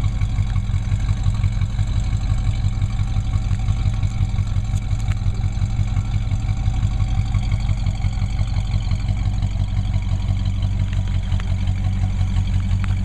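Ford 289 V8 with a two-barrel carburettor idling steadily, with an even low pulse.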